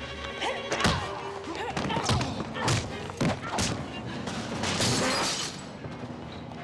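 A staged fight scuffle: about half a dozen sharp thuds and hits, mixed with grunts and cries, over background score music.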